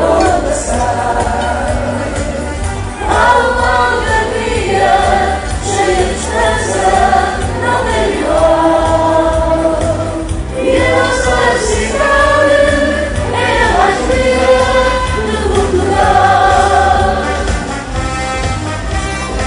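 Music: a group of voices singing a Portuguese marcha popular song in chorus over a band with a steady pulsing bass beat.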